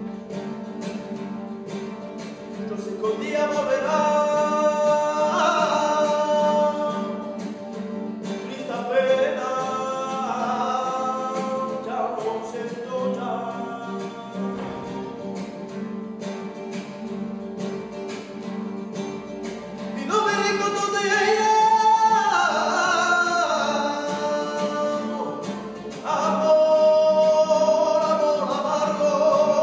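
Nylon-string guitar strummed in a steady rumba flamenca rhythm, with a man singing long, wavering flamenco-style phrases over it four times.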